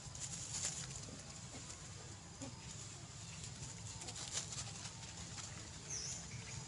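Faint rustling and scattered crackles as a troop of macaques forages in grass, over a steady low background rumble, with one short high chirp about six seconds in.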